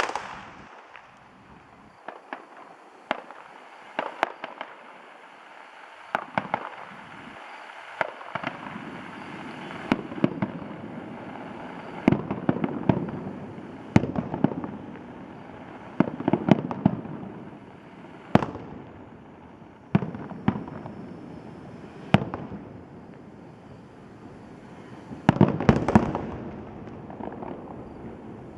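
Fireworks display: a run of sharp bangs every second or two, some coming in quick clusters, with a dense flurry of bangs near the end.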